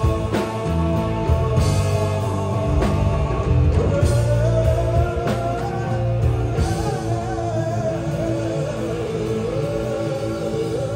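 Live rock band playing, with electric guitar, drums and a sung vocal line over the amplified sound system.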